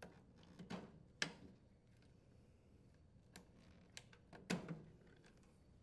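Faint, scattered clicks and handling noise from plastic wire-harness connectors being unplugged from a wine cellar's control board, about half a dozen sharp clicks, the loudest about a second in and another about four and a half seconds in.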